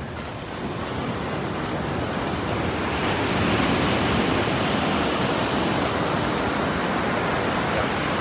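Sea surf washing onto a sandy beach, with wind on the microphone; the rush of the waves swells up about three seconds in.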